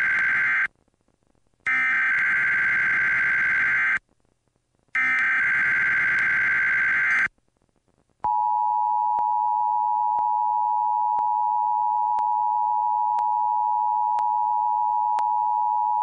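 Emergency Alert System SAME header: the end of one raspy, screeching burst of digital data tones, then two more bursts of a couple of seconds each, about a second apart. About halfway through, the steady two-tone EAS attention signal (853 and 960 Hz together) begins and holds.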